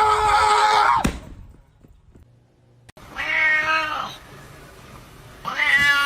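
A cat meowing in long, drawn-out calls. A long meow cuts off about a second in, a shorter meow comes around three seconds in, and another long meow starts near the end.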